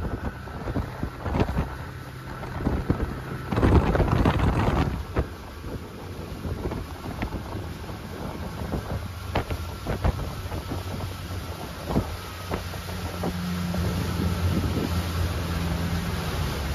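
Motorboat under way: a low, steady engine hum under wind buffeting the microphone, with scattered sharp knocks and a loud rush of noise about four seconds in.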